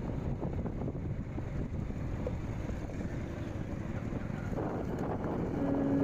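Wind buffeting the microphone of a moving vehicle, over a low steady road rumble. A few held notes of music come in near the end.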